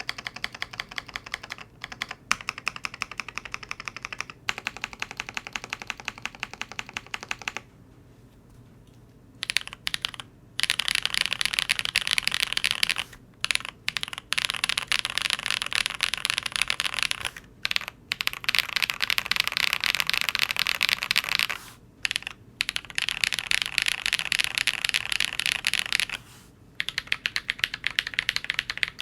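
Custom Devastating TKL mechanical keyboard with lubed YOK Holy Panda tactile switches, Whale PBT keycaps, an FR4 plate and PE foam under the switches, typed on quickly in a steady stream of key clacks. The typing pauses briefly about eight seconds in, then picks up louder and denser, with a few short breaks.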